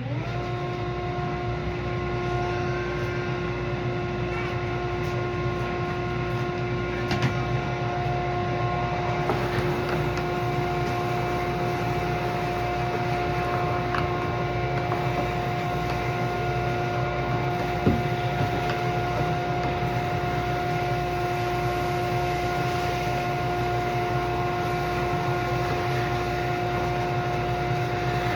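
A small electric motor switching on and running steadily with an even, pitched hum.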